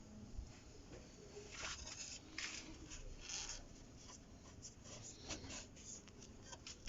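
Faint, irregular scratching and rustling handling noises, with no belt squeal to be heard.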